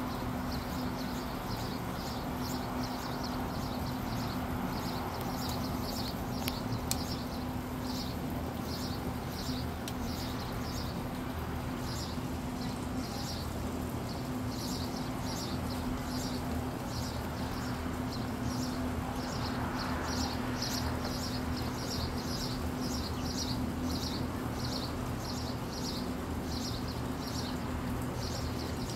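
A bird chirping over and over, short high chirps about twice a second, over a steady low hum.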